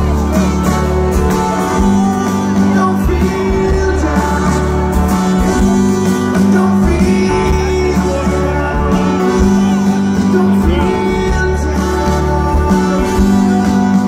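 Live band playing loudly through a festival PA, heard from within the crowd: guitars, drums and bass with singing, and a saxophone and brass section playing.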